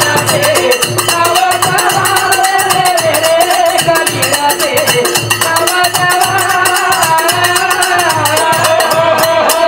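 Banjara devotional bhajan music: a hand drum beats about twice a second under fast, steady metallic jingling percussion, with a sustained, wavering melody line above. The music stops abruptly near the end.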